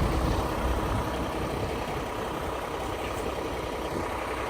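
A truck engine running steadily with a low rumble, slowly fading.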